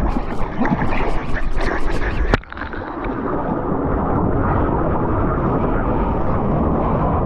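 Sea water splashing and surf rushing right at a GoPro on a bodyboarder, with wind on the microphone. A sharp knock comes about two and a half seconds in, after which the rush goes steadier and duller.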